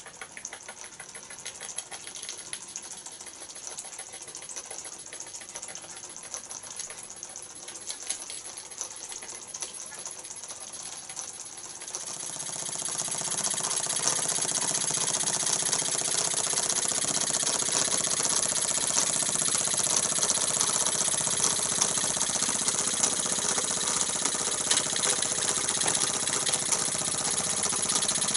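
Meccano toy steam engine running: a fast, even clatter of puffs and clicks from its small brass cylinder and moving parts. About twelve seconds in it becomes louder and fuller, with more hiss.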